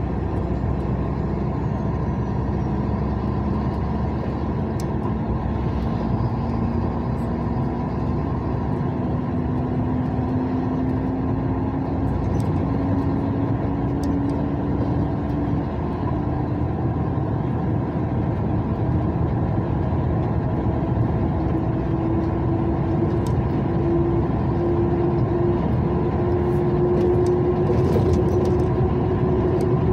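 A car driving, heard from inside the cabin: steady tyre and road noise under an engine note that climbs slowly and evenly in pitch as the engine speeds up.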